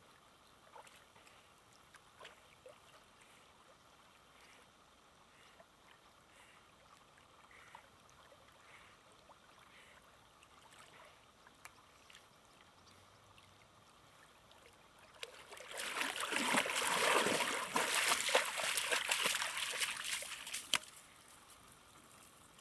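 A dog paddling through calm lake water with faint lapping and small splashes. About fifteen seconds in comes several seconds of loud, crackling splashing as it wades out of the shallows, which stops suddenly shortly before the end.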